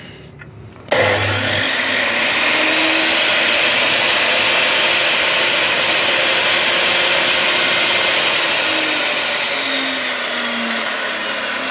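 Cut-off machine's brushed universal motor and blade switched on about a second in and running steadily at full speed with no cutting, a loud whirring whine that eases slightly near the end. The brushes spark only a little, which the owner takes as the sign of a sound, unshorted armature.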